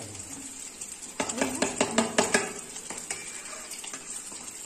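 A steel spoon clinks and scrapes against a metal bowl of batter in a quick run of knocks about a second in, as egg halves are turned in the batter. Under it runs the steady hiss of oil frying in a pan.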